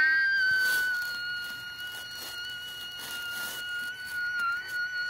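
A child's long, high-pitched squeal held on one steady note, growing slowly quieter, cutting off near the end.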